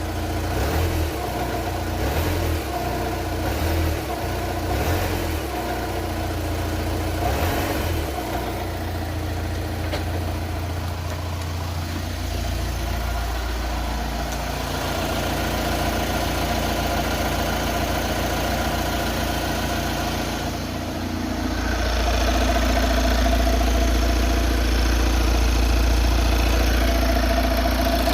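Volkswagen Transporter T5 engine idling, with a few short louder knocks or surges in the first several seconds; about three-quarters of the way through the engine note grows louder and steadies. The owner is trying to pin down an unexplained knock.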